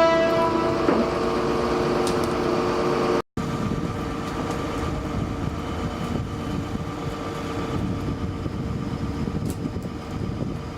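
Heavy truck engine running steadily, with a brief cut to silence about three seconds in.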